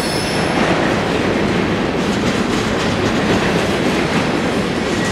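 Freight cars rolling past at trackside: the steady rumble and clatter of steel wheels on rail, with a brief high wheel squeal right at the start.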